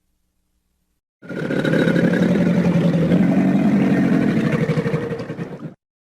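A large wild animal's drawn-out growl: one continuous, rough, pulsing call that starts just over a second in, lasts about four and a half seconds, and cuts off.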